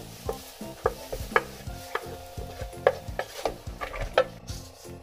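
Wooden spatula scraping and knocking against a frying pan as sautéed onions are pushed out into a bowl, with irregular sharp taps over a light sizzle from the hot pan. The sizzle dies away near the end as the pan is tipped up off the heat.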